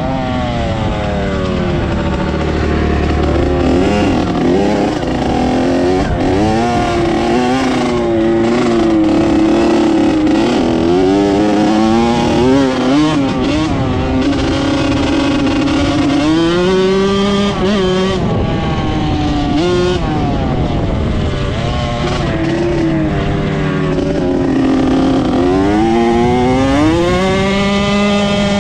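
Dirt bike engine revving hard, its pitch climbing and falling again and again as the bike accelerates and backs off.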